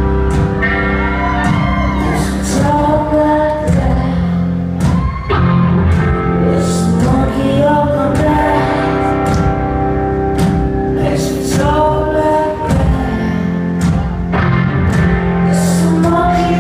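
Live rock band playing in a concert hall: a woman sings into a microphone over electric guitar and percussion hits, with the room's echo.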